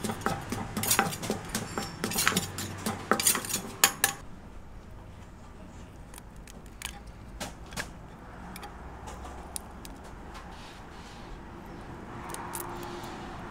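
Wooden pestle pounding chillies and garlic in a clay mortar for som tam: rapid knocks for about four seconds. Then it is much quieter, with a few small cracks and clicks as a small crab is pulled apart by hand over the mortar.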